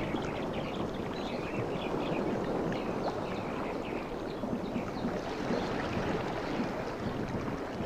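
Sea surf washing on a beach: a steady rush of water with small fizzing and trickling sounds as the wash runs up and back.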